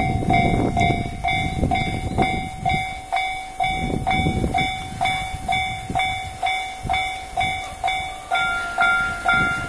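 Japanese railway crossing warning bell ringing in an even, repeating ding-ding, about two and a half strikes a second, signalling an approaching train. A second, higher ringing tone joins in near the end.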